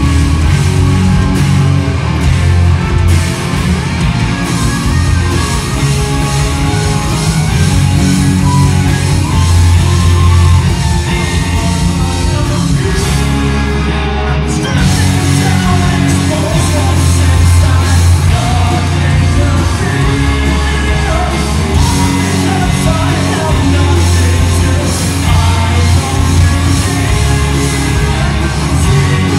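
Live rock band playing loudly: several electric guitars over a drum kit.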